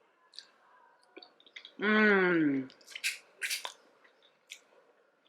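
Close-up eating sounds of sushi being chewed: small wet clicks and short smacking bursts, with a drawn-out 'mmm' of enjoyment, falling in pitch, about two seconds in.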